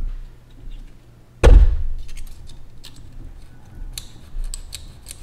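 A single heavy knock about a second and a half in, then light metallic clicks and clinks as steel feeler gauge blades are handled and slipped into the valve adjuster to recheck valve clearance.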